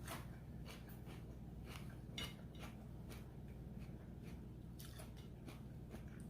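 A person chewing crunchy raw vegetables close to the microphone: short crisp crunches about two to three times a second, over a low steady hum.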